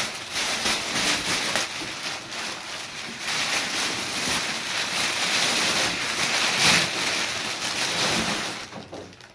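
Crumpled brown kraft packing paper rustling and crackling loudly as it is pulled out of a cardboard box and pushed aside, dying away near the end.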